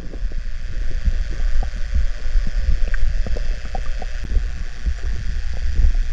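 Muffled underwater audio from a camera moving through kelp: a steady low rumble of water around the camera housing, with scattered soft clicks and knocks.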